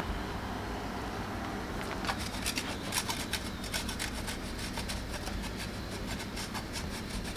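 A kitchen knife cutting potatoes on a wooden cutting board: a quick run of short scraping strokes, several a second, starting about two seconds in.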